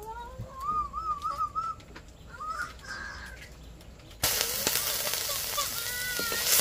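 A short, wavering high-pitched call, then, about four seconds in, food starts sizzling loudly in a hot pan.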